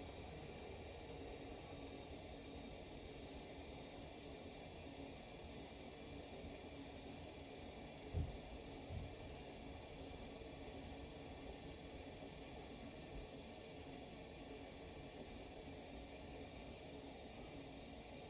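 Electric potter's wheel running at a steady speed, a quiet hum with a high thin whine. A brief low thump comes about eight seconds in.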